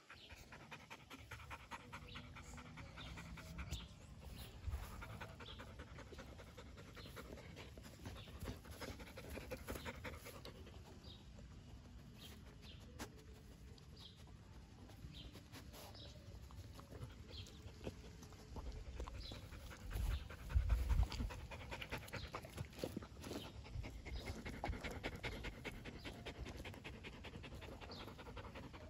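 Golden retriever panting in fast, even breaths, with a brief low rumble about two-thirds of the way in.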